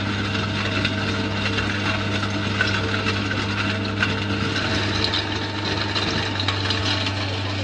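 Heavy machinery running steadily: a constant low hum with mechanical clattering and rattling over it.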